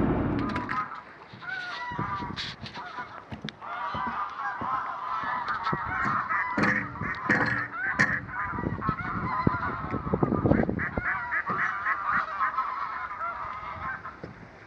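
A flock of geese honking, many short overlapping calls that keep up for most of the stretch and thin out near the end.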